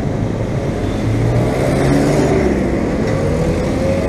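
Street traffic passing close by: vehicle engines running past over a steady rumble, one rising in pitch as it speeds up near the end.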